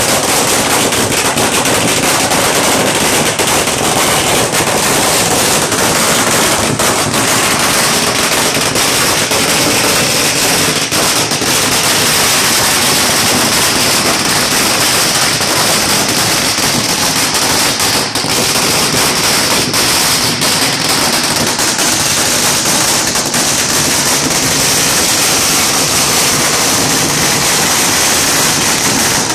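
Firecrackers going off in a loud, rapid, unbroken crackle of bangs.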